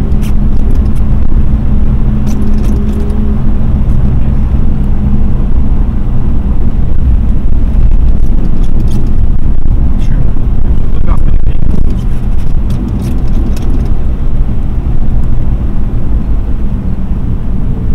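Mercedes-Benz W126 sedan at highway speed, heard from inside the cabin: steady engine drone mixed with loud low tyre and road rumble. A steady engine tone is clear for the first few seconds, then sinks into the road noise.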